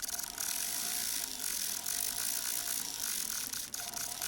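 Small high-speed rotary tool grinding down a sharp cut edge on a metal necklace clasp: a steady motor whine under a hissing grind, which eases off briefly near the end.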